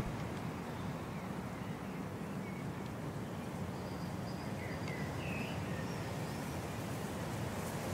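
Quiet, steady outdoor background noise, with a few faint bird chirps in the middle.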